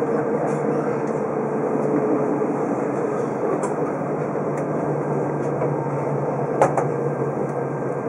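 Cabin noise of a Super Kamui limited express electric train running on the rails: steady rumble with a faint whine that fades out a few seconds in, and a single sharp click near the end.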